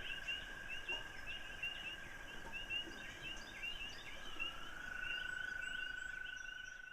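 Chorus of spring peepers giving rapid, repeated short peeps, over a continuous whirring trill from another frog that gives way to a slightly lower-pitched trill a little past the middle. Underneath is a steady hiss of rushing water flowing between the pond and the irrigated pasture.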